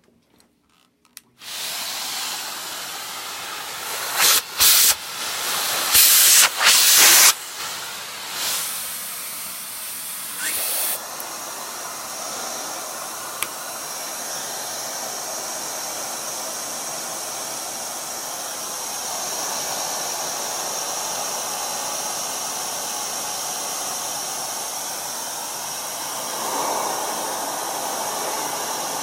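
Hoover central vacuum switched on about a second in: air rushing through the hose as a steady hiss, with several brief, much louder surges in the first few seconds before it settles.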